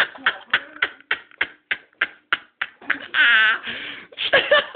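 Ceiling fan blades smacking repeatedly against a man's head, a fast even run of sharp hits about four a second, followed about three seconds in by a drawn-out wavering yell.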